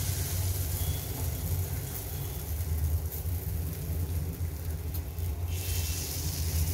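A steady low rumble, with a faint sizzle of batter frying in oil in an appe (paniyaram) pan. The sizzle grows louder near the end as another spoonful of batter goes into the pan.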